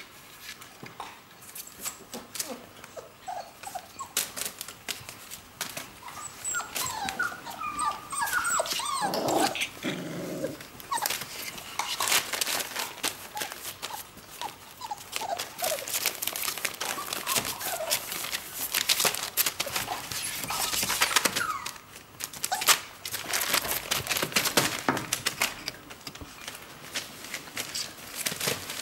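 Four-week-old whippet puppies whining and whimpering in short rising and falling cries, hungry for food, with claws scratching on the plywood box walls and newspaper crinkling under their feet.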